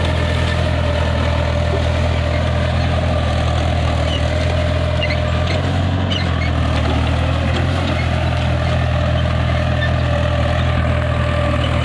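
Tractor's diesel engine running steadily while pulling a zero-till seed drill, a constant low drone with a steady higher whine over it.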